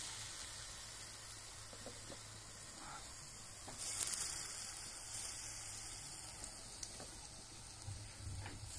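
Batter fritters frying in hot oil in an iron wok: a steady sizzle that swells about four seconds in as a fresh piece of batter is dropped into the oil.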